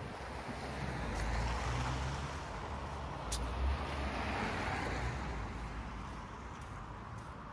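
A road vehicle passing on a city street: low engine rumble and tyre noise swell over a few seconds and fade away.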